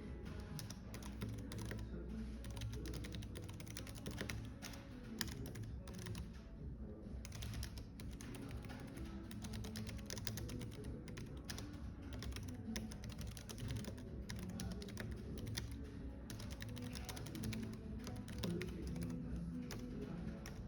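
Typing on a computer keyboard: a steady run of quick, irregular key clicks, over soft background music and a low cafe-like hum.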